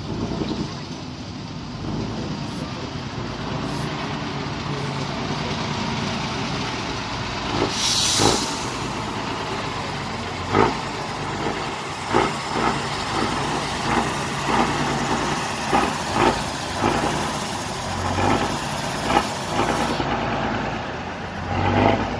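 Tatra off-road trial truck's diesel engine running under load as it works over a mud mound. About eight seconds in there is a short, loud hiss of air, and through the second half a series of sharp knocks and surges.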